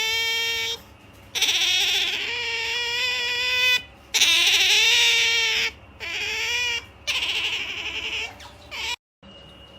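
Pet otter making long, pitched whining squeals, five or six in a row with short breaks between them, the later ones shorter, as it settles to sleep. The calls stop about nine seconds in.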